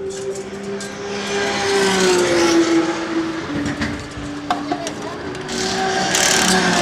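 Race-car engine notes droning, their pitch sliding down about halfway through, mixed with the sharp clicks and a hissing rattle of pneumatic wheel guns near the end as the GT86's wheels are changed in the pit stop.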